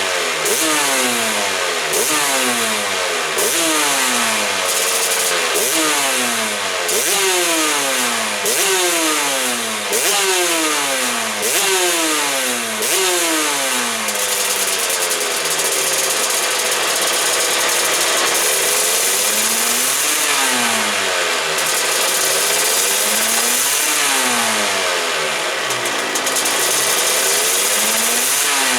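Honda NSR500 two-stroke V4 race engine in 1997 big-bang spec, running and being blipped: each rev rises sharply and falls away, about once a second for the first half. It is then held at a steadier raised speed for a few seconds before a few more spaced-out revs.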